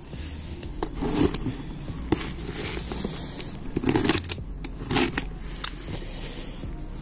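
A taped cardboard shipping box being torn open by hand: irregular ripping, scraping and crackling of cardboard and packing tape.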